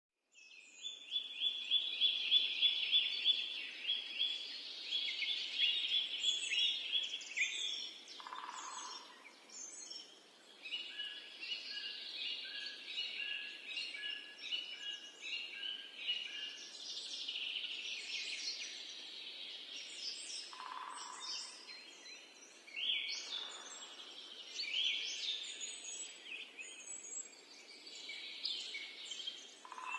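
Several birds singing and calling at once, with fast runs of repeated high notes and trills that are loudest in the first several seconds. A few short, lower calls stand out about a third of the way in and again past two-thirds.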